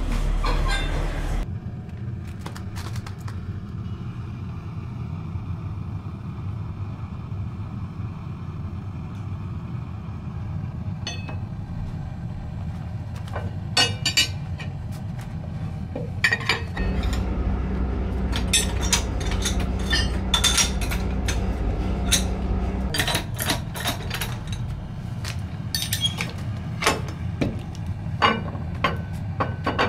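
Factory machinery humming steadily, with scattered sharp metallic clinks and clicks that come thicker in the second half. For several seconds past the middle the hum grows louder and deeper.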